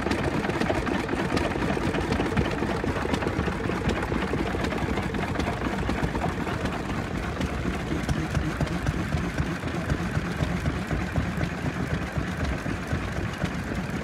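Several small vintage stationary engines running together, a steady rapid clatter of exhaust beats and open moving parts.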